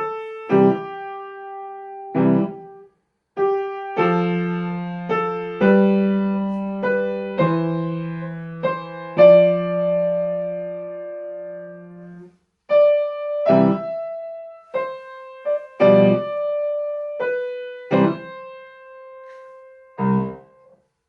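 Piano playing a simple beginner's piece a little slowly: separate notes and chords over a held low bass, with two short breaks, ending on a final chord near the end.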